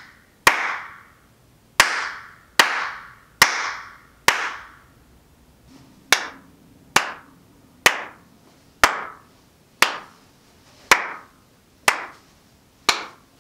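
Single hand claps, about one a second with a short pause after the fifth, thirteen in all. Each clap has a brief tail of room echo: this is a small studio room lined with acoustic foam panels, clapped to test how much of the reverb the foam has taken out.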